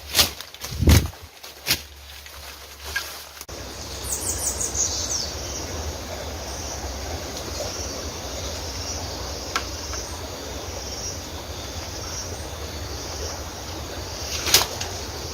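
Several sharp, loud blows in the first few seconds. Then an abrupt switch to a steady rushing outdoor noise, with a short twittering bird call about four seconds in and a single sharp click near the end.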